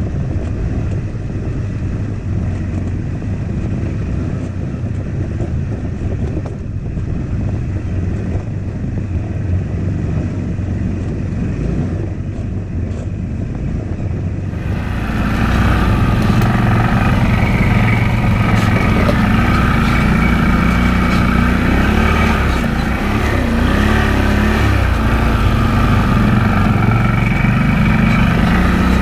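ATV engine running steadily while riding along a trail, with tyre and chassis noise. The engine sound gets louder and fuller about halfway through.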